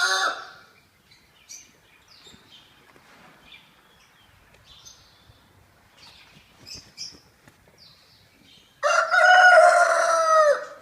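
Rooster crowing: the tail of one crow at the very start, then a full crow of about two seconds near the end. Faint bird chirps in the quiet stretch between.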